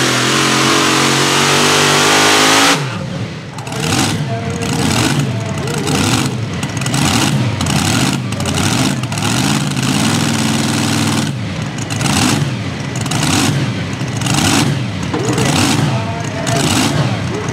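A pulling vehicle's engine at full throttle, its pitch slowly climbing, shuts off abruptly about three seconds in. It is then revved up and down over and over, about one and a half revs a second, with a short steadier hold midway.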